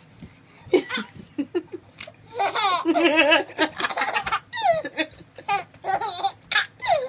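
A young baby laughing in repeated high-pitched bursts, the longest about three seconds in.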